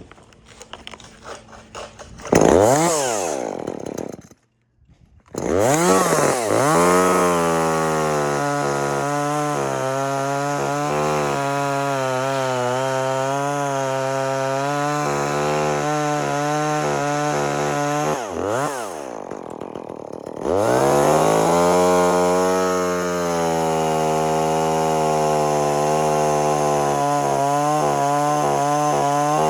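Two-stroke chainsaw revved up and held at full throttle cutting wood, with a brief drop in speed about two-thirds through before it is revved up again and cuts on.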